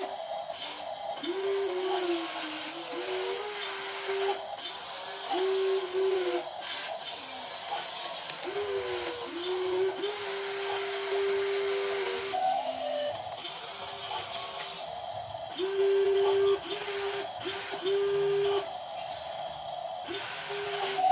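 Small electric motors of radio-controlled metal construction models whining in short runs that start and stop and dip in pitch under load, with a hiss that cuts in and out.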